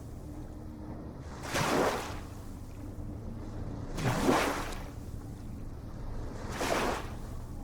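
Ocean waves washing ashore: three swells of surf about two and a half seconds apart, the loudest about halfway through, over a steady low rumble.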